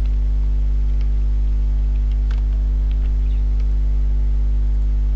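Steady electrical mains hum with a stack of low overtones, unchanging throughout, with a few faint clicks on top.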